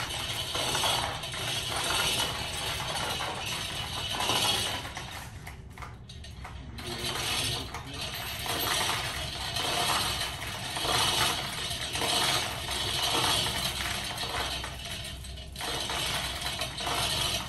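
Manual chain hoist being hauled by its hand chain to lift a slung boat hull: steel chain rattling and clinking through the block with a ratcheting click. The pulls come about once a second, with a short pause about five to six seconds in.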